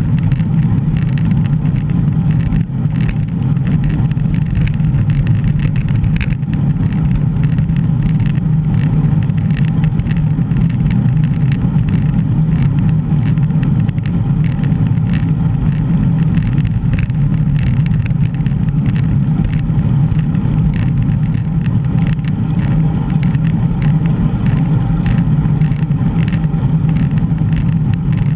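Steady rush of wind buffeting a GoPro's microphone while cycling, with light clicks and rattles running through it.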